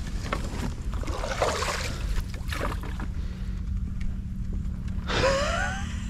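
Water sloshing and splashing around a small boat moving through shallow marsh water, over a steady low rumble. Near the end there is a short rising whine.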